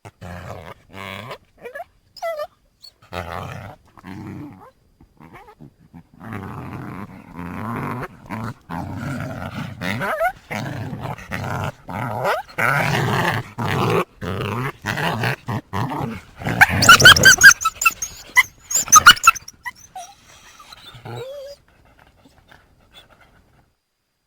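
Coyote vocalizing: a string of short, rough growls that come thicker and louder, then a burst of high-pitched yips from about 16 to 19 seconds in, the loudest part, before a few faint calls trail off.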